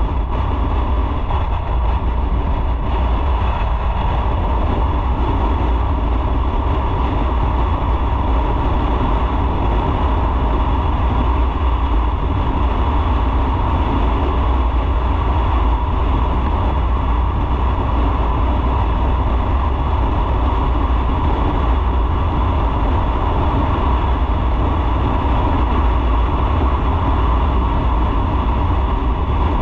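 Motorcycle riding at steady speed: a continuous deep rumble of engine, road and wind noise, with no changes or distinct events.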